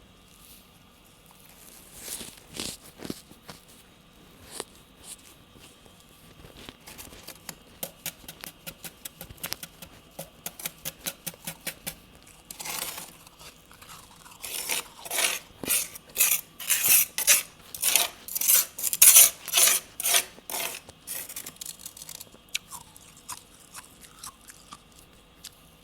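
Close-up crunching of powdery freezer frost being chewed: light, quick crunches at first, then a run of loud crunches about two a second through the middle, fading out toward the end.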